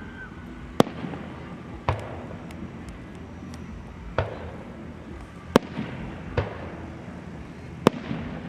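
Fireworks shells bursting overhead: about six sharp bangs at uneven intervals, some louder than others, each followed by a short fading echo.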